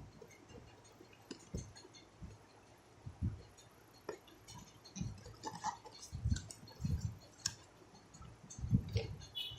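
A cardboard box being opened and handled by hand: scattered faint clicks and soft knocks, coming more often after about six seconds.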